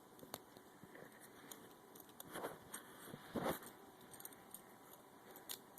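Faint small metallic clicks and ticks of a safety pin being worked into the keyhole of a Smith & Wesson handcuff, with two louder scrapes a couple of seconds in and a sharper click near the end.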